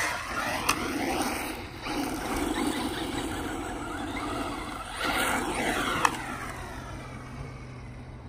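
Electric radio-controlled car motor whining as the car speeds past twice, its pitch falling each time it goes by, over the hiss of tyres on dirt. Two sharp knocks, about a second in and near six seconds.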